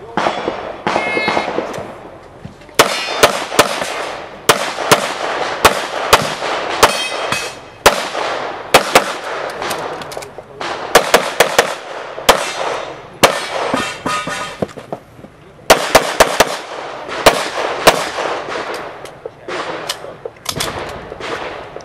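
Pistol shots fired in fast strings, in quick pairs and clusters with short pauses between them as the shooter moves between positions, starting about three seconds in; each shot rings out briefly.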